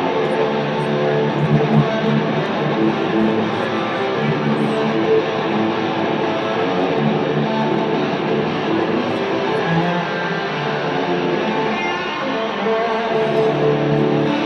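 Electric guitar music playing through a stadium's sound system, with long held notes.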